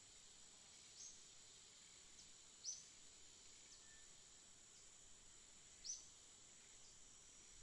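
Faint, sparse bird chirps, three short ones standing out, over a steady high-pitched insect drone.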